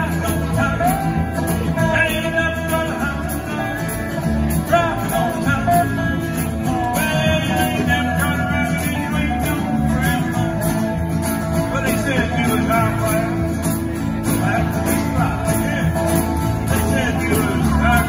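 Small live band playing rock-and-roll: strummed acoustic guitars over an upright bass, with a lap steel guitar sliding between notes.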